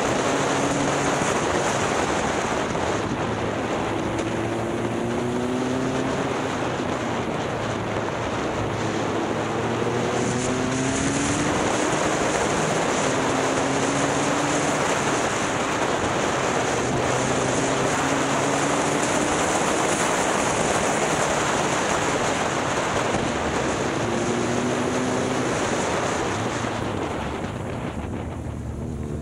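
Motorcycle under way, with heavy wind rushing over the microphone. The engine note climbs and drops back several times as the bike pulls through the gears. Near the end the wind eases and the revs climb steeply.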